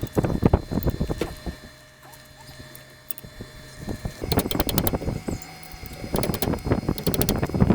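Socket wrench ratchet clicking in quick runs as 17 mm bolts on a truck's front suspension are tightened. There is a quieter pause in the middle.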